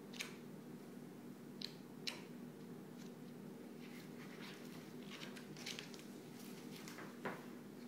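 Faint scattered clicks and soft rustling strokes over a steady low hum.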